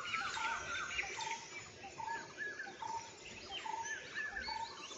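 Birds calling: one bird repeats a short, steady note about once a second while others chirp higher over it.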